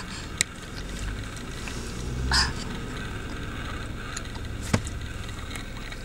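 Steady low rumble of a car cabin, with a light click near the start, a brief rustle about two and a half seconds in, and a sharp click near the end.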